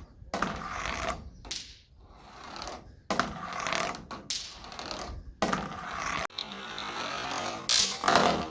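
Marbles rolling and clattering along a marble-run track, with sharp clicks as they knock against the track and each other, in stretches that start and stop abruptly.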